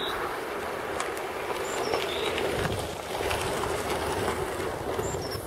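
A steady rushing noise with a few faint knocks and small high chirps.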